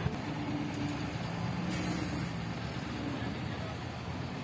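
Road traffic with heavy vehicles: a steady low engine drone, with a brief hiss about two seconds in.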